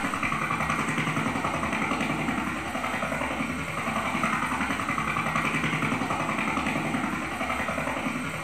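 Rotorcraft in flight: a steady whirring of rotors and motor with a fast, regular pulsing.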